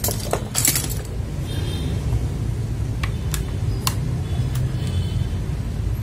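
Mechanical keyboard switches being pulled out of a hot-swap board's sockets with a switch puller: sharp plastic clicks and clinks, a quick cluster at the start and then single clicks spaced out through the middle.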